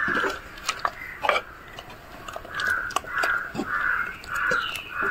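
A crow cawing: one caw at the start, then from about halfway through a quick run of about five caws, roughly two a second. Light clicks and taps sound between the caws.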